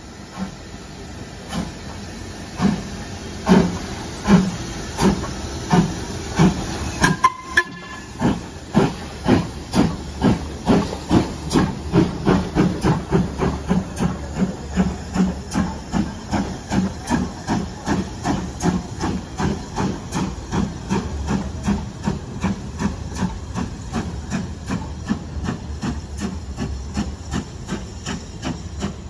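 LMS Ivatt Class 2MT 2-6-2 tank engine No. 41241 pulling away with its train: chuffing exhaust beats over a steady hiss of steam, quickening from about one a second to about three a second as it gathers speed.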